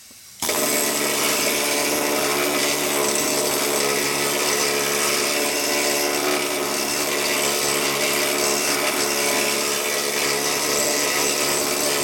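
Pen-sized pneumatic needle scaler starting about half a second in and running with a loud, steady buzz as it chips rust and grime off a car's steel floor pan.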